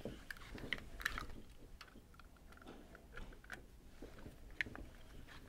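Faint clicks and light scraping of an Allen wrench turning out the end-cap bolts of a Clack WS2 water softener valve.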